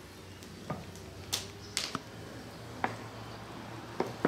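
About seven sharp clicks and taps, spread unevenly, from glass bottles and kitchen items being handled on the table while olive oil is poured, over a low steady hum.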